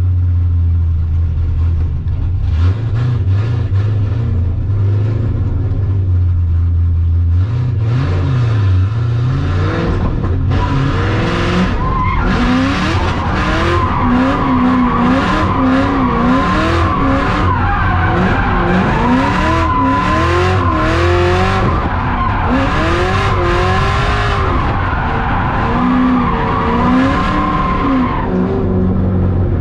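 Cadillac CTS-V's LS2 V8 running at a steady low note, then from about ten seconds in revving up and down through a drift while the rear tires squeal in a long, steady screech that fades near the end.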